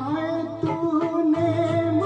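A man sings a Hindi film song into a microphone over recorded backing music, holding a long wavering note.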